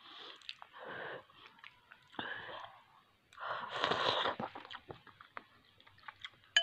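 A person slurping fish-and-moringa soup off a spoon and chewing, with small spoon and mouth clicks; the longest, loudest slurp comes about four seconds in.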